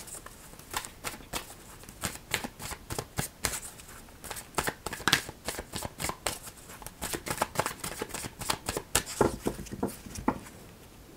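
Tarot deck being shuffled by hand, a quick, even run of card slaps and flicks, about three a second. Near the end come two duller knocks before it stops.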